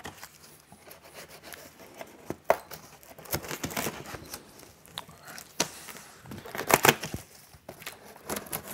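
Packing tape on a cardboard box being slit with a pocket knife and pulled away: scattered scratches, clicks and short tearing sounds, the loudest near the end.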